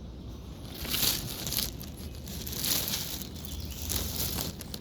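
Rustling, crinkling noise in three bursts: about a second in, near the middle, and near the end.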